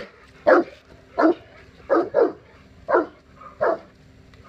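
A large dog barking repeatedly in play, about seven barks at a steady pace of a little more than one a second, one pair coming close together about two seconds in.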